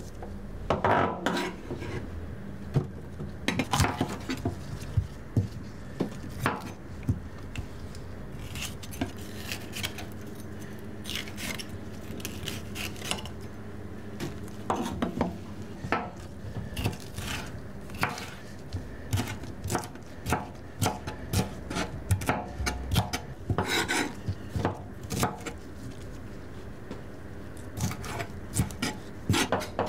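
Irregular clinks and knocks of kitchen utensils, dishes and containers being handled during food preparation, over a steady low hum.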